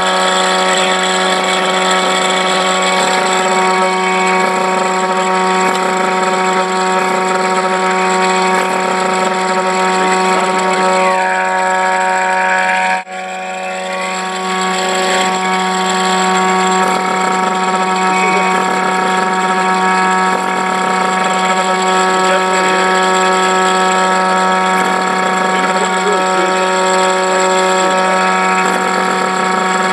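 Homemade miniature supercharged siren running: an electric motor belt-drives a pond-aerator air pump that blows air through a PVC chopper and stator, giving one steady loud tone with many overtones. The sound dips briefly about 13 seconds in, then comes back up.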